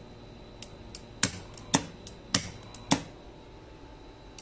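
Magnetic contactors and push buttons on an overhead crane's control panel clicking as the east-travel control is pressed and released: about five sharp clicks, roughly half a second apart, in the first three seconds.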